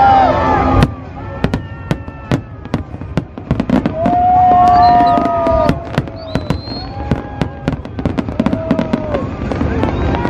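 Aerial fireworks bursting in a rapid, irregular string of bangs and crackles. A few long held tones sound over them, loudest from about four to six seconds in.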